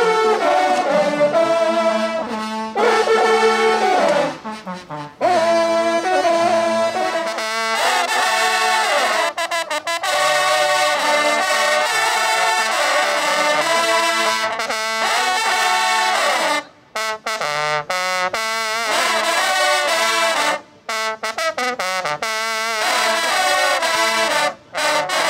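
Ensemble of French hunting horns (trompes de chasse) playing a fanfare together: loud sustained brass notes in phrases, with a few brief breaks, stopping abruptly at the end.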